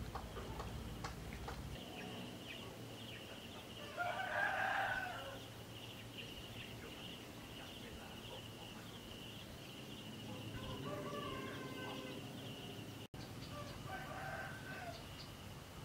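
Rooster crowing once, loudly, about four seconds in, with fainter calls twice later, over a steady high pulsing insect trill.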